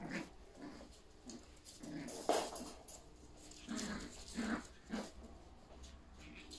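Yorkshire terrier puppies and their mother making short dog noises while they play-fight, about eight brief sounds with the loudest a little over two seconds in.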